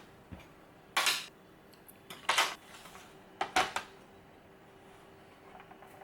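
Cutlery and dishes clinking during a meal: a few short, sharp clatters of utensils against tableware, the last two close together.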